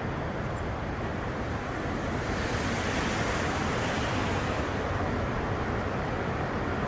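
Heavy rain pouring down in a steady hiss at the onset of a thunderstorm downpour. The rain swells a little about two seconds in.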